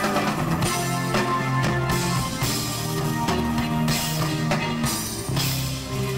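Live band playing through a stage sound system: drum kit and electric guitars.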